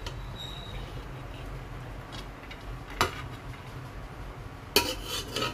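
Metal slotted skimmer knocking and scraping against a steel pot as cooked rice is scooped out: one sharp clink about three seconds in, then a short run of clinks and scrapes near the end, over a low steady hum.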